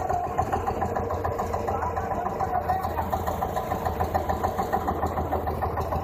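Old diesel tractor engine idling with a steady, even chug.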